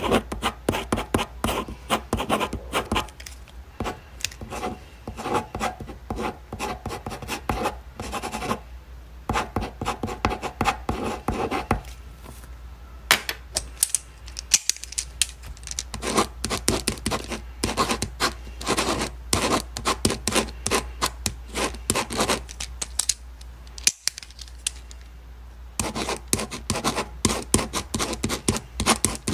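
Ballpoint pen writing on paper in dense runs of rapid short strokes, stopping for about a second a little before halfway and for about three seconds about three-quarters of the way through.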